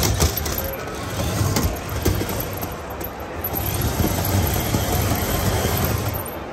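Remote-control stunt car's small electric motors and gear trains buzzing in surges as it drives and twists on its roller wheels, with a few sharp knocks; the buzzing eases near the end.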